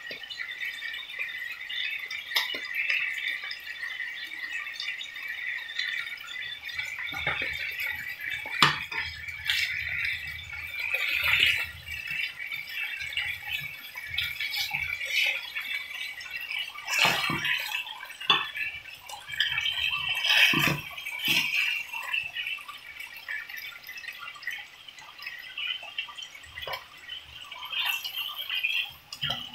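Striploin steak pieces sizzling and crackling in hot oil in a frying pan. Several sharp clinks of a fork against the pan, mostly in the middle, as the pieces are turned.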